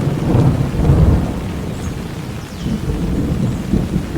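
Rain falling steadily with a long rolling rumble of thunder, loudest in the first second and swelling again about three seconds in.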